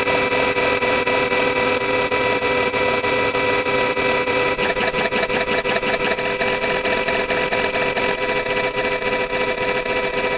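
Steady buzzing electronic sound effect: a held tone with a rapid stream of clicks running through it, like an engine idling.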